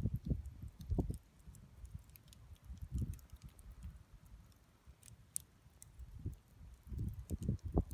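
Wood bonfire crackling, with scattered sharp pops and ticks, the loudest about five seconds in. Irregular low thumps and rumbles run under it, heaviest at the start and again near the end.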